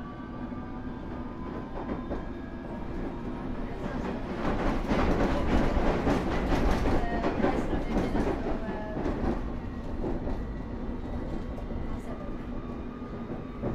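Cab-free passenger view of a London Underground S7 stock (Bombardier Movia) train running on the District line: steady rolling noise, with the thin whine of its IGBT-VVVF traction inverter rising gently near the start. From about four to nine seconds in, the wheels clatter louder over the track, then it settles back to a steady run.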